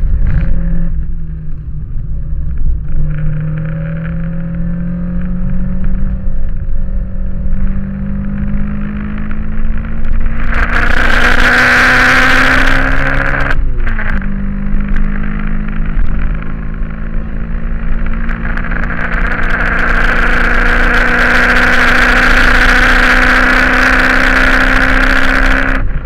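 Toyota Corolla AE86's 20-valve 4A-GE four-cylinder engine at full throttle, heard from inside the cabin. The revs climb steadily, drop sharply at an upshift about halfway through, then climb again to another shift at the end, with loud intake and engine roar at the top of each gear.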